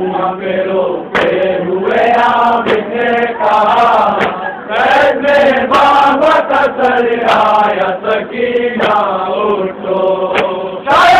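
Men chanting a Shia noha (lament) together, with sharp slaps of hands beating on chests (matam) at intervals through the chant.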